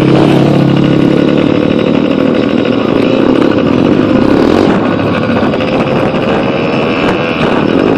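Pit bike engine running loud and close, its pitch wavering up and down and rising slowly near the end.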